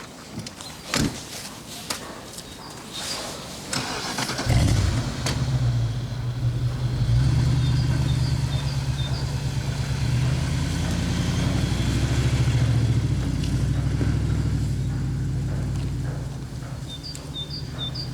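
A few knocks and clicks, then about four seconds in a BMW X5 E53's engine starts and runs with a steady low rumble.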